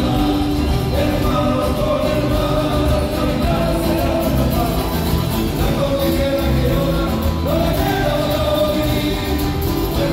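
Live folk-rock band playing amplified through a hall's PA: strummed acoustic guitars, bass and drums keeping a steady beat, with a sung melody over the top.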